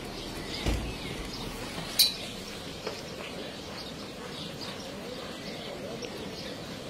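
Steady rush of muddy floodwater running over a flooded path, with small birds chirping. A dull bump comes near the start, and a sharp click, the loudest sound, about two seconds in.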